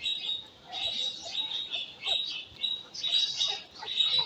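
Small birds chirping and chattering, many quick high chirps overlapping without a break.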